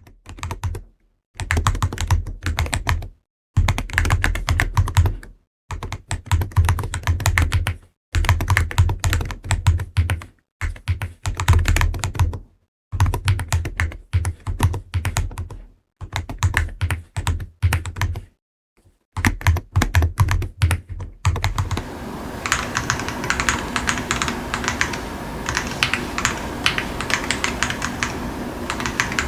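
Typing on a Wooting 80HE keyboard fitted with TTC Flip King of Magnetic (top-bottom housing) magnetic switches, PC plate, PBT Cherry-profile keycaps and a KBDfans GT-80 case. The keystrokes come in bursts split by short silent breaks, then from about 22 seconds on run unbroken over a steady hum.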